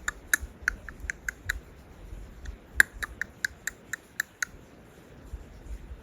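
A series of short, sharp clicks and ticks at an uneven pace, about a dozen in the first four seconds, then quieter.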